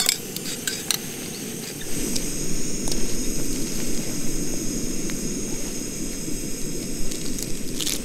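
Jetboil gas stove burner running with a steady rushing hiss, which grows a little louder about two seconds in. A few light metallic clinks of a spoon against a metal mug come in the first second.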